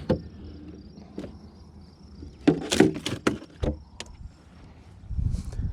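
Several sharp knocks and clatters in a quick cluster about two and a half seconds in, like gear or a lid being handled, with a brief low thump near the end. Insects chirr steadily behind it.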